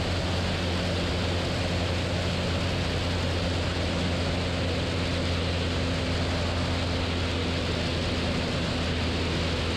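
Steady low drone of a Cessna 172's piston engine and propeller in cruise, heard inside the cabin, holding at an even level with a strong low hum.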